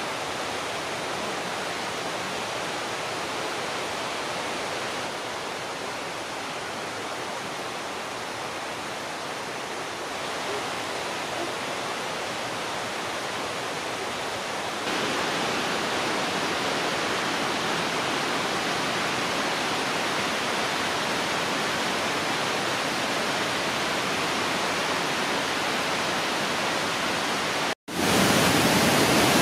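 Steady rushing of Lynn Creek's rapids, a constant even hiss. It grows louder about halfway through, and again after a brief dropout near the end, as the white water pours through a rock gorge.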